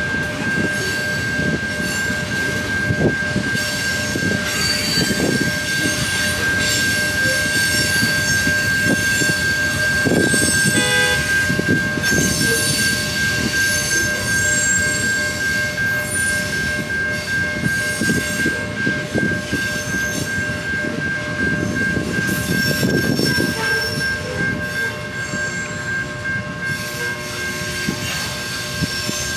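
Freight train tank cars rolling past, their wheels knocking over the rails, with a steady high-pitched wheel squeal throughout.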